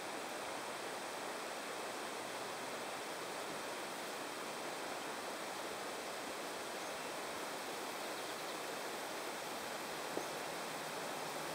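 Steady, even outdoor ambient hiss with no distinct events apart from one faint click near the end.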